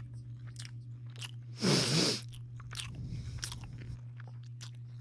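Someone chewing a sandwich close to the microphone, with short mouth clicks and one louder noisy burst about a second and a half in, over a steady low hum.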